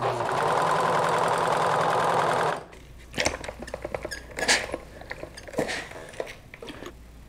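Janome serger (overlock sewing machine) running at speed, stitching a jersey T-shirt edge with a steady, fast whir for about two and a half seconds, then stopping abruptly. After it come quieter scattered rustles and light knocks as the fabric is handled under a steam iron.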